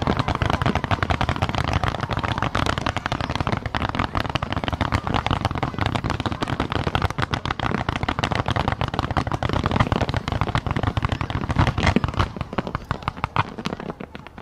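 Fireworks barrage: many shells bursting in quick succession, their bangs and crackles running together into a dense, continuous rattle that tails off at the very end.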